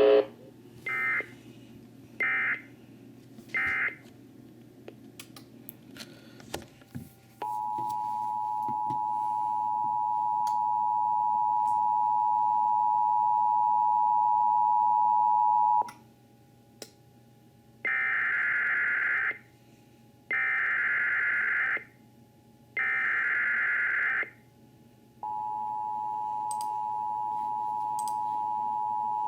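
Emergency Alert System tones. Three short bursts of warbling data tones close out the severe thunderstorm warning, then a steady two-tone attention signal sounds for about eight seconds. Three longer data bursts open the next alert, and the two-tone attention signal starts again near the end.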